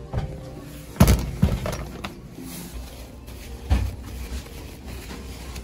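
A few sharp knocks and bangs: a loud one about a second in, two lighter ones soon after, and another strong one just before four seconds.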